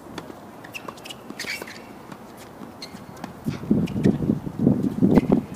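A few sharp pops of a tennis ball struck by rackets and bouncing on a hard court during a doubles rally, then loud irregular low rumbling thumps from about three and a half seconds in.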